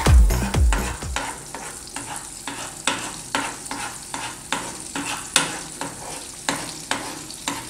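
Eggs frying in butter in a frying pan, sizzling steadily, with a utensil scraping and knocking against the pan about twice a second.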